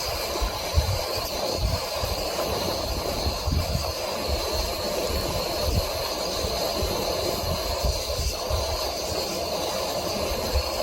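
Strong gale-force wind buffeting the microphone in irregular low rumbles over a steady hiss.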